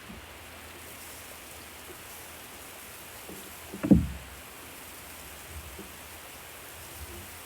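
Steady hissing noise, with one short, loud low thump about four seconds in.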